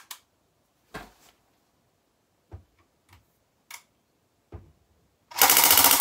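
A few scattered sharp clicks, then near the end a short full-auto burst from a CYMA CM125S MOSFET-edition electric airsoft pistol, firing at about 16 rounds a second. The burst is pretty loud.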